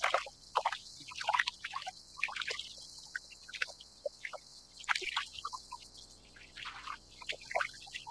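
Small waves lapping and gurgling against a kayak's hull in irregular little splashes and drips.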